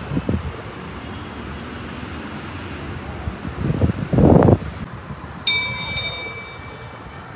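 A bell rings once about five and a half seconds in, several clear high tones sounding together and fading over about a second. Just before it comes a loud rush of noise lasting about a second, over a steady background rumble.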